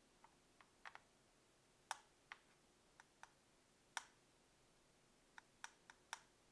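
About a dozen small, sharp clicks at irregular intervals: a paintbrush tapping and scraping against a watercolor palette while mixing paint in its well.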